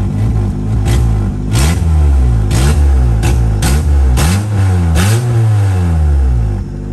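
Honda Civic's four-cylinder engine being blipped, its revs rising and falling about five times in quick succession, with sharp pops in the exhaust that sound like a two-step launch control. The oxygen sensor is not yet back in the exhaust.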